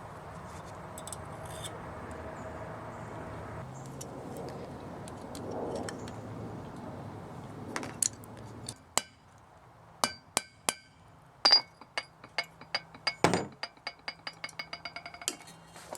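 A run of sharp metallic clinks, each ringing briefly at the same high tones, as steel wire is tightened around a habaki on a steel knife blade. The clinks begin about halfway through and come faster near the end.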